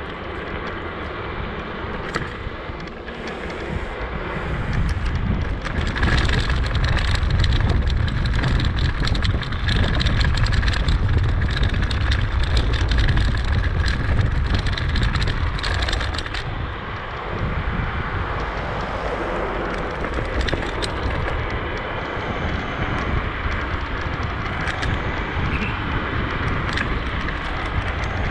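Wind buffeting the microphone over a low rumble, with many small clicks, loudest from about 5 to 16 seconds in.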